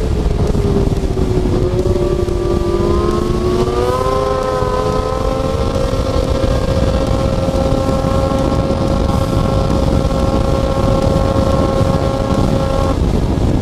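Snowmobile running at speed along a trail under a steady rushing noise: the engine note dips, then climbs and holds steady, and drops out near the end as the throttle comes off.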